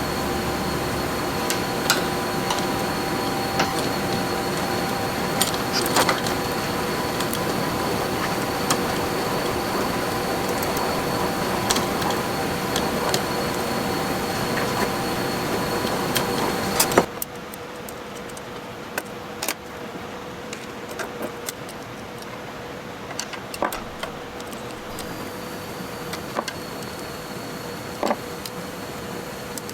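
Light metallic clicks and taps of tools and metal brake-line parts being handled, over a steady machine hum with several tones that cuts off abruptly about seventeen seconds in. After that the clicks continue against a quieter background.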